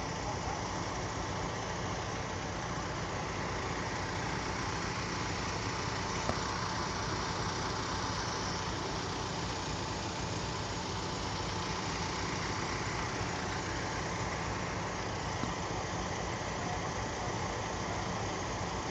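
Vehicle engines idling steadily, with a constant even hiss over them.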